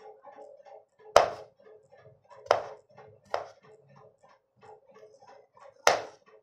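Kitchen knife chopping onion on a wooden cutting board: four sharp knocks of the blade striking the board, unevenly spaced, the first about a second in and the last near the end.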